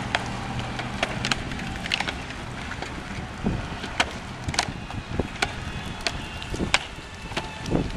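EventDeck Ultra plastic turf-protection panels being set down on asphalt and fitted together: irregular sharp plastic clacks and knocks, with a low steady hum in the first couple of seconds.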